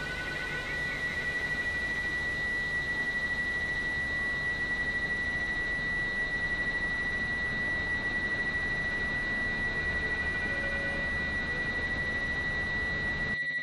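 A steady high-pitched electronic sine-like tone held over a constant hiss. Near the end it cuts abruptly to a buzzing, distorted synthesizer sound.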